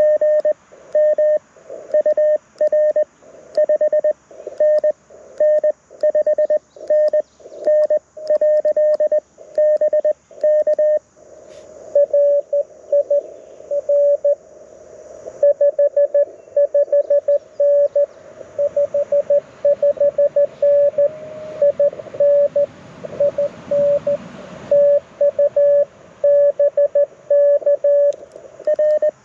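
Morse code (CW) tones from a Mountain Topper MTR4B QRP transceiver through a small speaker, keyed in dits and dahs at a pitch around 600 Hz. For the first eleven seconds or so each tone comes with clicking, as in the operator's own sidetone while he sends on paddles. After that the tone shifts slightly and band hiss rises and falls under it, as another station's signal is received.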